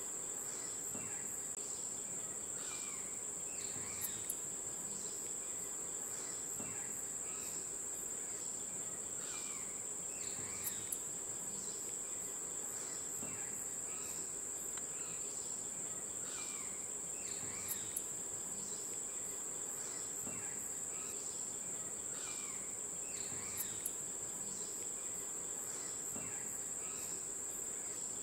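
A steady, high-pitched insect drone from a chorus of crickets or cicadas in grassland, with many short falling bird chirps over it. A sharp double click comes roughly every six or seven seconds.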